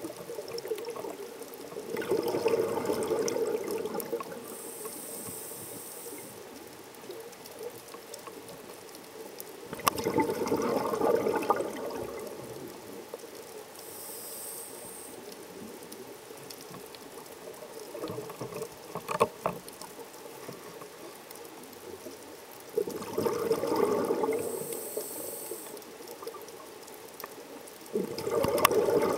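Scuba diver breathing through a regulator underwater: bursts of exhaled bubbles gurgle out every six to ten seconds, and each is followed by a short, high hiss of inhaling through the demand valve.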